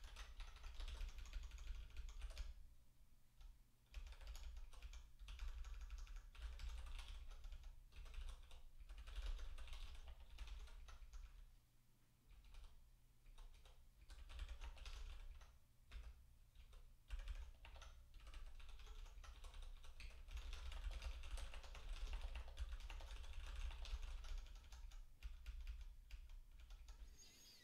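Faint typing on a computer keyboard: quick, irregular key clicks in runs, with short pauses between them.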